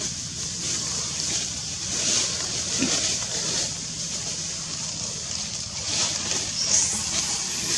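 Steady high-pitched hiss of outdoor forest ambience that swells and fades slightly, over a faint low hum.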